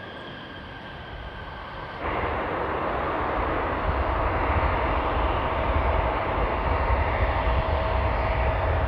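Jet aircraft engines: a fainter, steady whine, then from about two seconds in an abrupt jump to a much louder, even roar with a heavy low rumble and a steady tone running through it.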